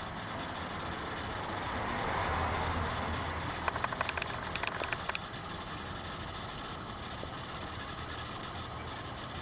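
Maine Coon kitten scrabbling at play on a quilted fabric cat bed: a soft rustle, then a quick run of small clicks lasting about a second and a half, over a steady background hum.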